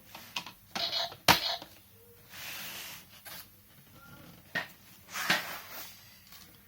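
Handling noises: a sharp click or knock about a second in, short rustling scrapes, and a second click and scrape past the middle.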